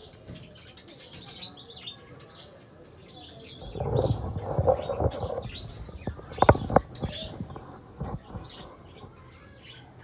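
Small birds chirping over and over in short high notes. About four seconds in comes a second and a half of rustling, then a few sharp taps or knocks around six and a half seconds.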